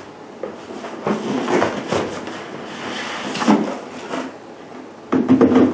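Cardboard packaging of an airsoft gun being handled and opened: several irregular scraping and rustling sounds, with a louder one near the end.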